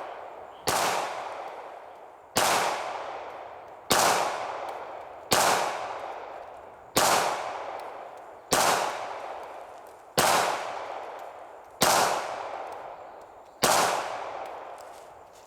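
Beretta 92FS 9mm pistol firing nine slow, evenly paced single shots, about one every second and a half. Each shot is a sharp crack followed by a long fading echo. The rounds are 135-grain Hornady Critical Duty hollow points.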